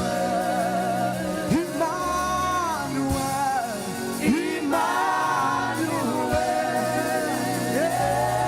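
Gospel worship song: a voice singing long held notes with vibrato over steady instrumental accompaniment.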